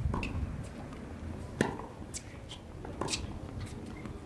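Tennis ball struck back and forth in a practice rally on a hard court: a sharp racket hit about every second and a half, with fainter ticks of the ball bouncing between.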